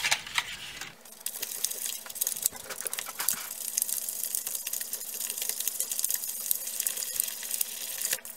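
Plastic fork stirring powder and water in a plastic candy-kit tray: a fast, continuous patter of small scrapes and clicks as the tines sweep the wet mixture around the well.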